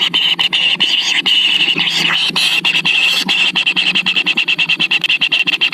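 Nestling birds begging: a continuous, high-pitched stream of rapid pulsing calls that cuts off abruptly at the end.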